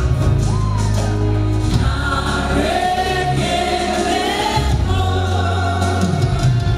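Gospel song: a woman's lead voice sung into a microphone, with choir-like backing voices, over instrumental backing with a prominent bass line that shifts every second or two.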